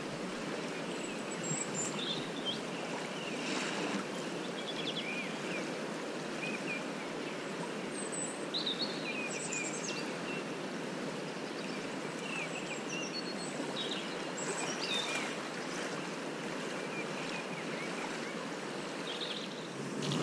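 Steady rush of a fast-flowing river, with short high bird chirps every few seconds.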